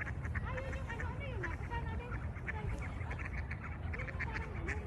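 A flock of geese calling, with many short honks overlapping throughout, over a steady low rumble.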